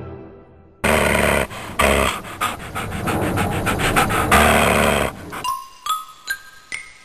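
A dog growling, loud and rough with sharp clicks through it; it starts suddenly about a second in and cuts off after about four seconds. After it, a tune of high chiming notes begins.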